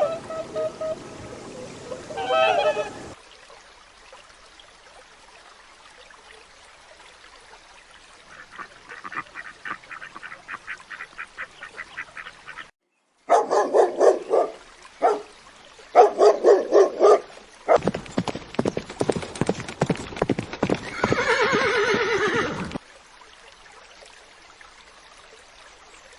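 Farm animal calls in several short clips, one after another. The loudest are neighing and whinnying calls in the second half, one of them a long call falling in pitch.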